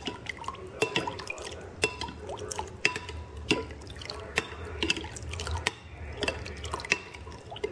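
Metal spoon stirring a liquid sauce in a glass bowl: irregular light clinks of the spoon against the glass, several a second, with the liquid dripping and swishing.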